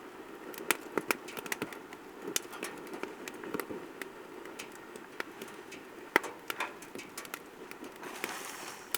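Damp firewood crackling and popping in a fire pit as it struggles to catch, with irregular sharp pops over a steady hiss.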